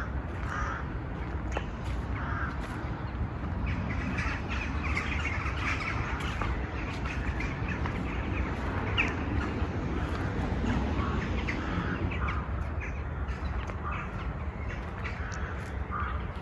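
Crows cawing repeatedly, with smaller birds chirping higher and more busily through the middle, over a steady low rumble of outdoor background.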